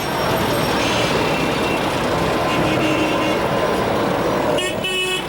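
Busy road traffic with engines running and horns honking, a loud horn blast sounding near the end.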